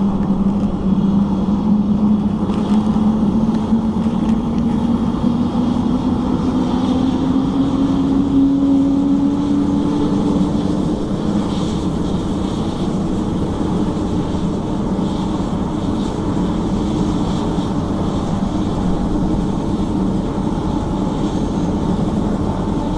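Helicopter running on the ground with its rotor turning, a steady engine-and-rotor din whose tone rises slowly in pitch over the first ten seconds or so and then holds steady, as it spools up before take-off.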